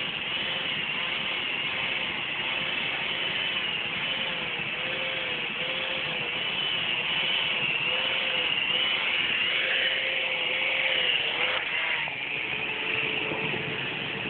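Battery-powered toy UFO running: a looping, warbling electronic sound effect over the whir of its small motor and gears. The warble pattern changes after a couple of clicks about twelve seconds in.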